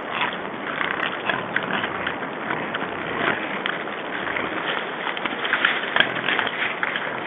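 Several wild boars making squeaky noises: many short, sharp squeaks coming in quick irregular succession over steady background noise.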